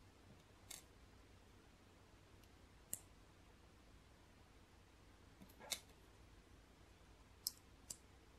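Small plastic LEGO pieces clicking as they are handled and pressed together, about five separate sharp clicks spaced a second or two apart.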